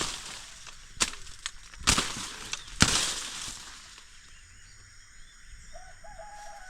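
Four sharp crackling rustles of leaves and vegetation, about a second apart, dying away after about three seconds. A faint short call near the end.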